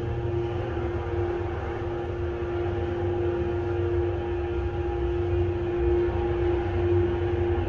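Otis 2000R passenger lift car travelling, heard from inside the car: a steady hum with one held tone over a low rumble.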